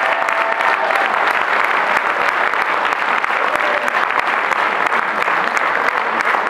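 Concert hall audience applauding steadily, a dense, even clapping from many hands.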